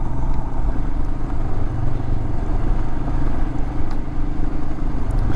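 Adventure motorcycle riding at a steady pace: the engine runs evenly under a constant rush of road noise.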